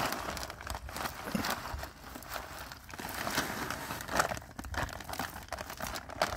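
Plastic bag of dry cat food crinkling and rustling as kibble is poured out onto a concrete curb, with a scatter of small clicks from the pellets landing.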